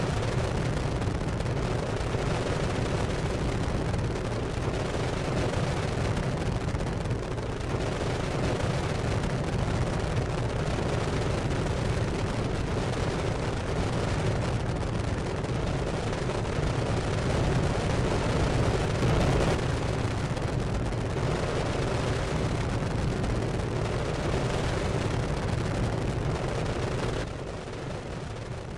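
Continuous crackling, rumbling roar that keeps up without pause, then drops away near the end.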